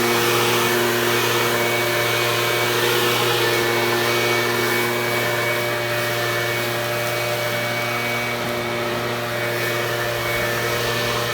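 Small gasoline engine of lawn equipment running steadily at constant speed, with a strong rush of noise over its hum.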